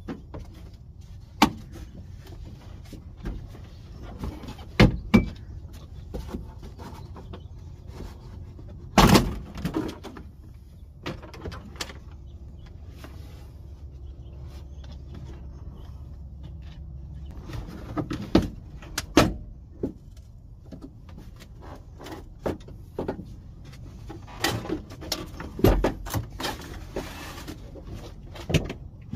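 Chevy Cobalt SS rear quarter plastic trim panel being worked loose by hand: scattered clicks, knocks and rattles of the panel and its clips, the loudest clatter about nine seconds in, over a low steady hum.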